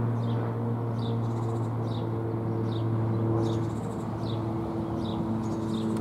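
Mushroom-shaped fire-brigade warning siren sounding a steady low tone with overtones during a siren test, fading slightly after its louder peak just before. A bird repeats short falling chirps about once a second over it.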